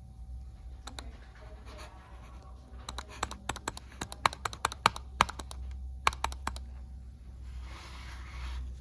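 A quick, irregular run of sharp clicks and taps lasting a few seconds, over a low steady hum, with a brief hiss near the end.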